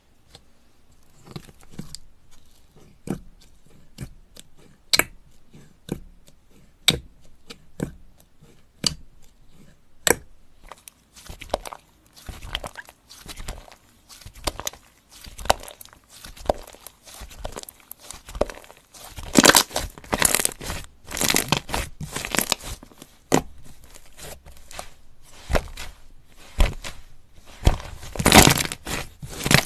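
Thick slime being poked, stretched and squished by hand, giving sticky clicks and small pops. The pops come singly about a second apart at first, then in quicker, louder crackling runs as the slime is stretched and squeezed.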